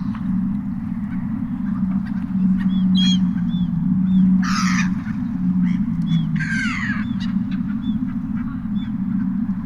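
Seagulls calling: scattered short cries, with two loud harsh squawks about four and a half and six and a half seconds in, over a steady low rumble.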